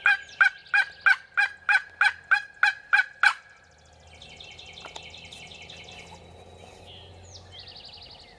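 A series of about ten loud turkey yelps, evenly spaced at roughly three a second, ending about three seconds in. Fainter rapid high trills follow.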